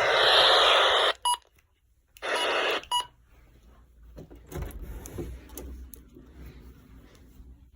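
Weather radio hiss with no broadcast on it, cutting off about a second in with a short beep. A brief second burst of hiss follows and ends in another beep about three seconds in, then faint knocks and rustles.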